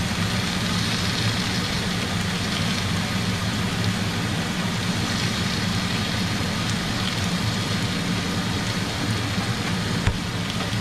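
A steady low mechanical hum with a hiss over it, running without change.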